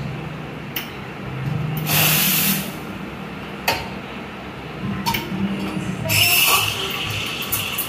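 BFC Aviator espresso machine's steam wand hissing in two short bursts, about two seconds in and again near six seconds, as it is purged. A couple of sharp clinks of cup and metal come between them.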